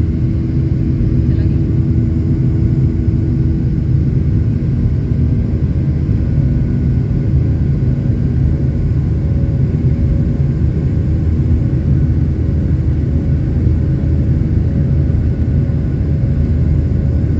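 Airliner's engines running with a steady, loud drone and rumble after takeoff, heard from inside the cabin.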